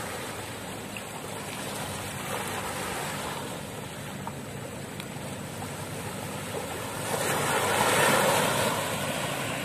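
Small, gentle sea waves washing onto a sandy, pebbly shore in a steady wash, with one wave surging louder about seven seconds in.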